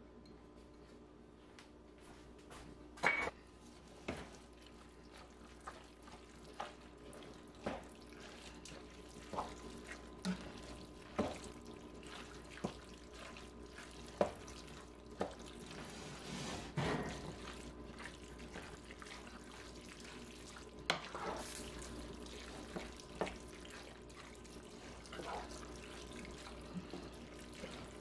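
A wooden spoon stirs spaghetti through a thick meat sauce in a pot, making wet squelching with irregular knocks against the pot, roughly one a second. A steady hum runs underneath.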